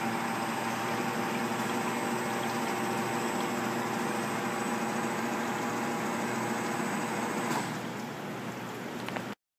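Automatic polishing lathe running steadily, a motor hum with several steady tones over a noisy whir. About seven and a half seconds in there is a click and the machine runs a little quieter, and the sound cuts off just before the end.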